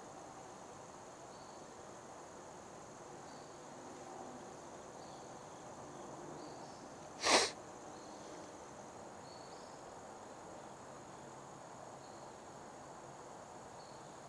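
Quiet outdoor background with a thin, steady high insect drone and a few faint chirps. About seven seconds in, one short, sharp burst of noise cuts through.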